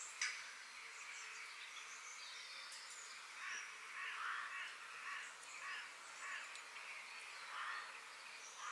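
Woodland birds calling over a steady outdoor hiss: high chirps, with a run of short, rough calls repeating about every half second through the middle. A sharp click comes just after the start.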